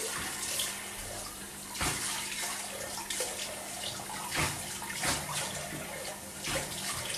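Hot water running from a tap into a bathroom sink, with several short splashes, during the rinse between passes of a straight-razor shave.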